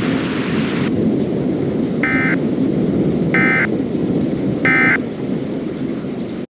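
Thunderstorm sound of rumbling thunder and rain, the higher hiss dropping away about a second in. Over it come three short bursts of warbling data tone about a second apart, the EAS/SAME end-of-message signal. Then all the audio cuts off abruptly.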